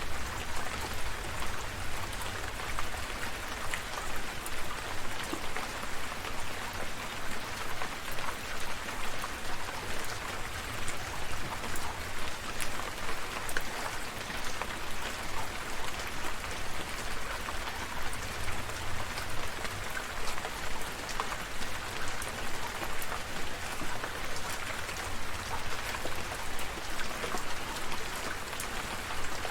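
Steady countryside rain: an even hiss with many separate drop hits, and a low rumble underneath.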